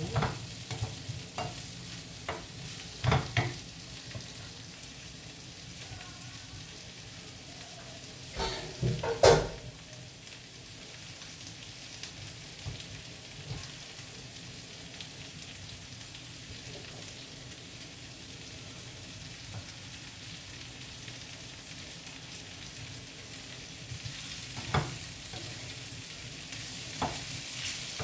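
Zucchini, onion, peppers and meat sizzling steadily in a nonstick frying pan, with a wooden spatula stirring and knocking against the pan now and then, loudest about nine seconds in.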